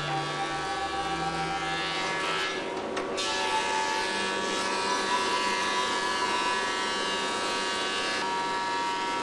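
Large industrial thickness planer running steadily as planks are fed through, a loud machine hum and whine with cutter noise, briefly dipping about three seconds in.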